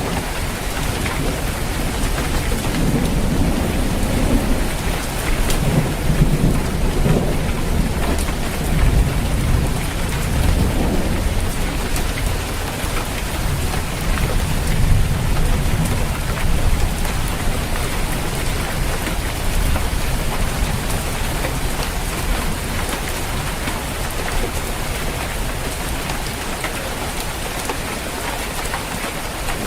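Steady heavy rain on a roof, with a long low rumble of thunder that swells in the first half and fades away by the middle.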